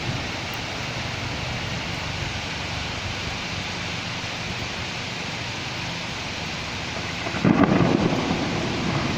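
Steady rain falling, with a sudden loud low rumble breaking in near the end.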